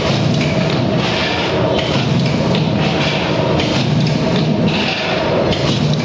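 Vertical form-fill-seal pouch packing machine running: a steady mechanical hum with a repeating cycle of clatter and a brief hiss, about once every second or so, as the jaws seal and cut off each snack pouch.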